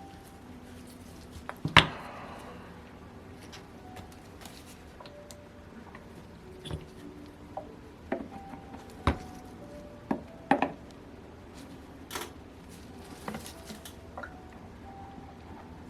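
Tools and small metal engine parts clicking and knocking against each other and the bench during hand disassembly of a model glow engine. Scattered knocks, the loudest one about two seconds in, with a quicker run of clinks between about eight and eleven seconds.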